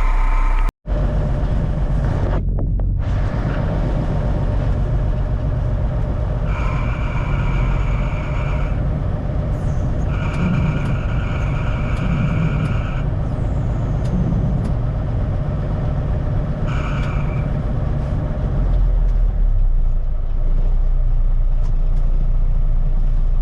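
1974 Kenworth log truck's diesel engine running steadily after a cold start. A high-pitched tone comes and goes three times over it.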